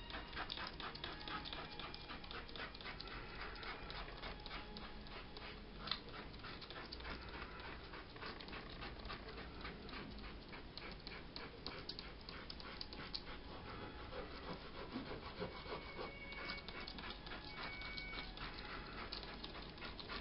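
Hand rubbing over the surface of watercolour paper in quick, repeated scratchy strokes.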